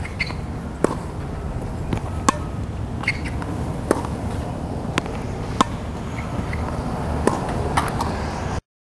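Tennis balls being struck with rackets: sharp pops at uneven intervals, roughly one a second, over a steady low rumble. The sound cuts off suddenly near the end.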